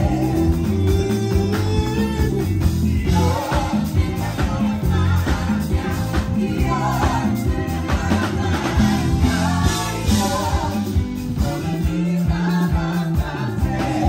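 Live gospel praise band playing, with a Fender five-string electric bass carrying strong, moving bass lines, congas, and a voice singing over the band.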